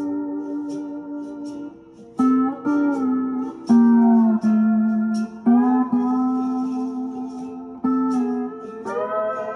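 C6-tuned electric lap steel guitar played with a thumb pick and a steel bar: held chords that slide into pitch several times, with a brief dip in loudness about two seconds in. Underneath runs a backing track with a light, even tick about twice a second.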